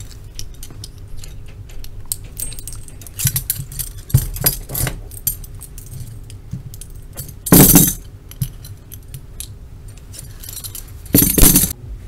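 Steel handcuffs and their keys clicking and jangling as the cuffs are unlocked and taken off, with a few louder metal rattles, the biggest just past the middle and near the end.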